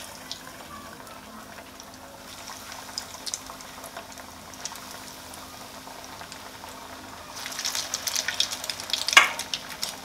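Breadcrumb-coated chicken cutlets frying in hot oil in a kadai on medium heat, sizzling with scattered crackles that grow busier and louder about three-quarters of the way in. One sharp click near the end.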